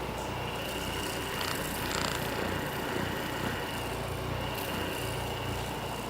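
Percussive massage gun running, a steady low buzzing hum with a faint high whine above it.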